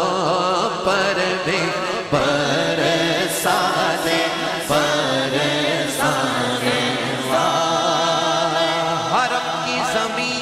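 Male voices chanting a naat melody without instruments, holding long, wavering notes that change every second or two, with no clear words.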